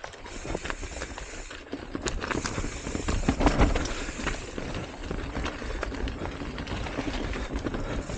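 Mountain bike rolling fast down a dirt and rock trail: tyres crunching over the ground, with a steady rumble and many quick rattling clicks and knocks from the bike over roots and stones, busiest a couple of seconds in.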